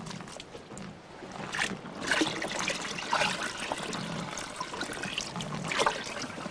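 Water trickling and splashing in uneven spurts.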